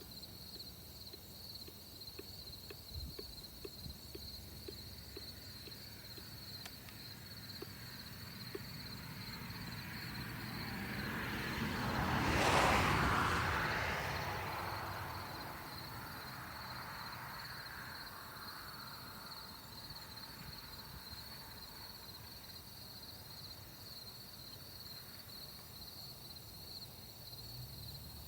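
A vehicle passing by, its noise swelling over several seconds to a peak about halfway through and then fading away. Under it, insects keep up a steady, pulsing shrill.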